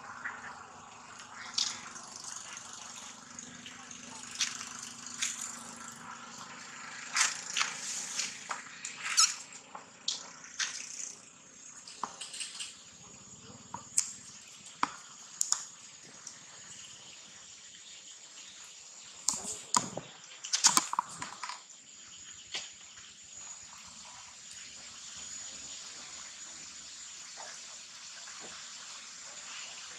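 A steady high insect drone with many short clicks and taps scattered over it. A louder cluster of knocks comes about twenty seconds in.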